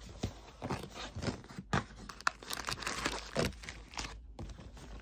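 Rustling and crinkling of a cardboard cookie box and the plastic wrappers of individually packed chocolate-chip cookies being taken out. It comes as an irregular run of short crackles.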